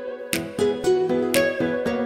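Background music: plucked acoustic guitar playing a light, rhythmic pattern.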